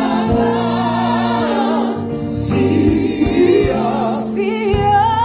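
Live gospel worship music: voices singing long held notes in harmony over keyboard, bass and drums, with a sung line wavering in pitch in the second half.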